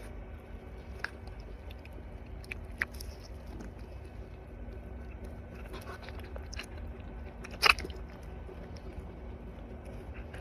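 Red panda biting and chewing a treat: scattered small crunchy clicks, with one louder crunch about three quarters of the way through.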